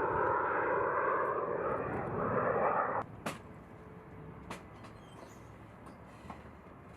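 Jet aircraft engine noise, a steady rushing roar that cuts off abruptly about three seconds in, leaving a faint background with a couple of small clicks.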